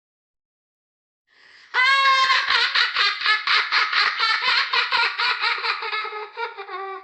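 A child laughing: after a faint breath, a sudden burst of loud, high-pitched laughter about two seconds in, running on as a fast string of ha-ha pulses, about four a second, until it stops just before the end.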